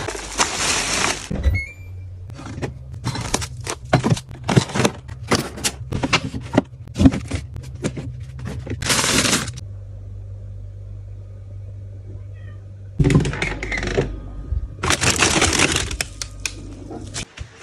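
Household items being handled: bursts of rustling and many scattered knocks and clicks over a low steady hum.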